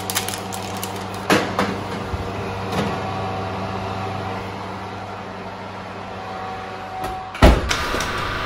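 A metal baking tin is slid onto a wire oven rack, clinking a few times. A steady low hum runs underneath, and near the end there is a loud thump as the oven door shuts.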